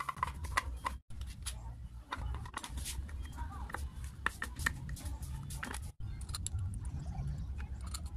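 Light clicks and taps of plastic and metal parts being handled as a small electric water pump motor is reassembled, its plastic terminal-box cover fitted and fastened. A steady low rumble runs underneath, and the sound cuts out briefly twice.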